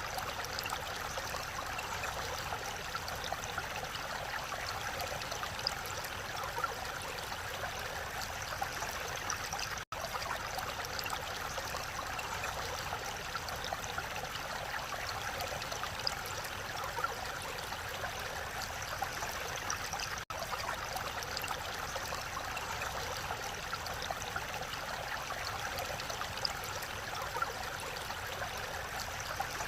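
Mountain valley stream flowing steadily, a continuous rushing of water, with two momentary dropouts about ten seconds apart.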